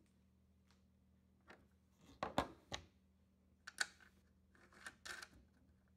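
Faint clicks and light scrapes of small metal hardware being handled at an acoustic guitar's end-pin output jack. They come in small clusters: about two seconds in, again near four seconds, and around five seconds in.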